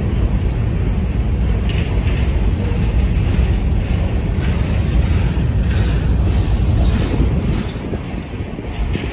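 Covered hopper cars of a freight train rolling past over a grade crossing: a steady low rumble with scattered wheel clicks, easing off about eight seconds in as the last car goes by.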